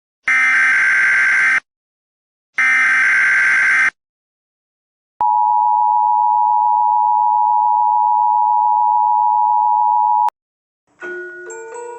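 Emergency Alert System alarm: two harsh, screechy data bursts of the header about a second apart, then a steady two-tone attention signal held for about five seconds that cuts off suddenly. Near the end a chiming, glockenspiel-like tune begins.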